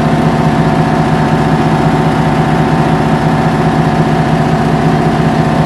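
Trailer-mounted Trane rental chiller unit running with its diesel engine: a loud, steady mechanical drone with a constant low hum.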